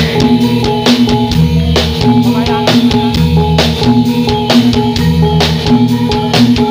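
Live drum-led accompaniment for a Javanese Buto Gedruk dance: fast sharp drum strikes over a deep bass note that comes back about every second and a half, with a repeating pattern of held pitched notes above.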